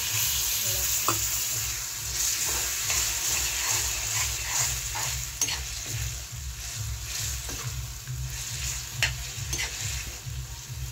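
Paneer curry gravy sizzling in a kadhai as water is poured in, the hiss loudest at first and then settling. A steel ladle stirs it, scraping and clicking against the pan now and then.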